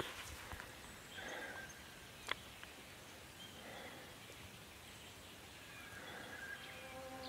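Quiet bush ambience: soft rustles and faint, scattered bird chirps, with one sharp click about two seconds in. A held musical tone fades in near the end.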